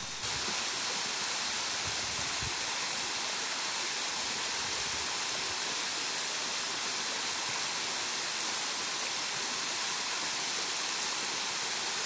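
Mountain stream running over rocks and into pools, a steady hiss of flowing water.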